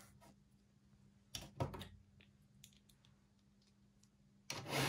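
Small clicks and rustles of things being picked up and handled on a desk, in two brief clusters: one about a second and a half in, and a louder one near the end.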